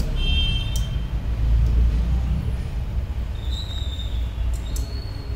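A low steady rumble, with a few short high-pitched squeals and light clicks over it.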